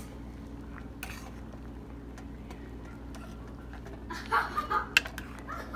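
Pot of spaghetti at a boil on the stove, under a steady low hum, with a knock about a second in. Near the end comes a quick run of short high-pitched calls and a couple of sharp clicks.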